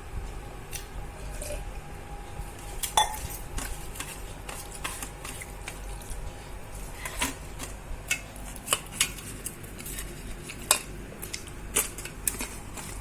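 Metal utensils clinking and knocking against metal cookware, with irregular sharp taps and scrapes, the loudest about three seconds in and several more in the second half.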